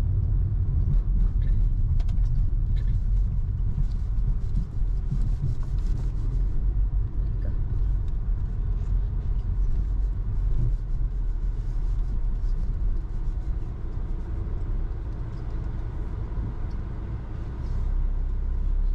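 Car driving along a road: a steady low rumble of engine and tyre noise, with a few light clicks and rattles in the first several seconds.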